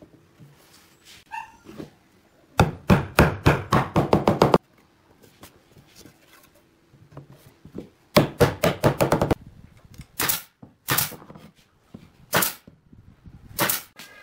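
Hammer rapidly tapping a glued wooden rail down into its mortise joint, in two quick runs of strikes, followed by a few single knocks.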